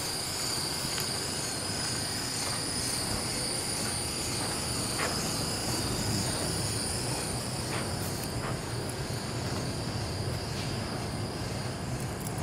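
Steady high-pitched buzzing of insects, with a low steady rumble underneath and a few faint ticks.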